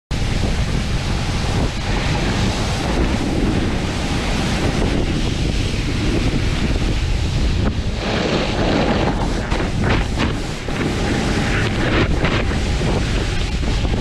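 Wind buffeting the microphone of an action camera mounted on a snowboard, with a low rumble and a shifting hiss as the board rides through powder snow.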